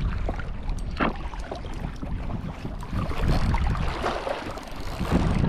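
Wind buffeting the microphone over choppy water lapping against a rocky shore, a steady low rumble with scattered small clicks.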